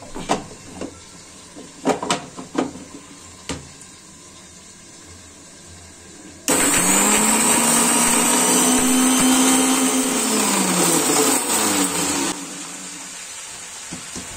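A few knocks, then about six and a half seconds in an electric mixer grinder's motor starts suddenly and runs loudly, grinding dry whole spices in its steel jar. Its hum sags in pitch as it winds down, and the sound drops to a quieter hiss near the end.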